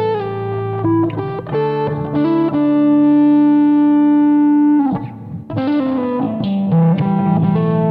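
Instrumental guitar music: an electric lead guitar plays a slow melody of long sustained notes over a steady lower backing, holding one note for about two seconds before the sound dips briefly and the melody moves on.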